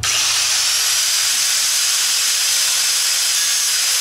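Angle grinder grinding down a welded-on steel lobe on a small engine's camshaft: a steady, loud grinding hiss with a high whine that starts abruptly.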